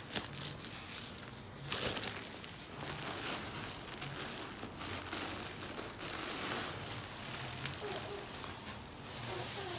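Thin plastic carrier bags crinkling and rustling in uneven surges as clothes are pulled out of them.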